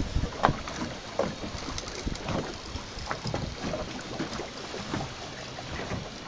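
Water lapping and slapping against a small boat's hull, with light wind on the microphone and scattered faint, irregular knocks.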